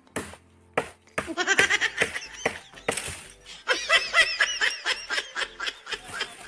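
Two sharp axe chops into a fallen branch in the first second. Then several seconds of rapid, high-pitched, laughter-like chattering, louder than the chops.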